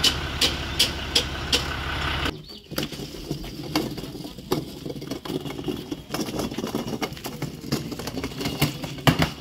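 Tractor engine idling with a regular tick about three times a second, stopping abruptly about two seconds in. After that come irregular knocks and rattles of a plastic feed cart being wheeled and handled.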